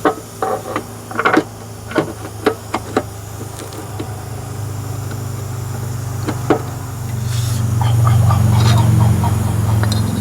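A motor or engine running steadily with a low hum that swells louder near the end, over a string of sharp clicks and knocks in the first three seconds and one more about six and a half seconds in.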